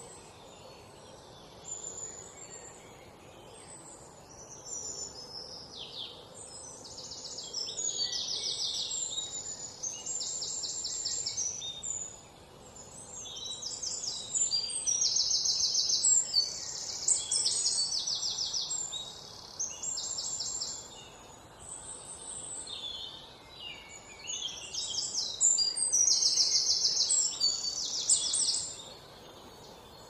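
Small songbirds singing: repeated high, rapid buzzy trills about a second long with chirps between them, thickest in the second half, over a steady background hiss.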